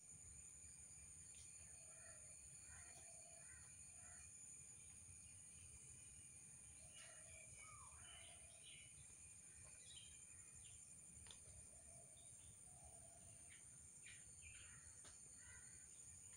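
Faint outdoor ambience: scattered short bird calls and chirps over a steady high-pitched whine and a low rumble.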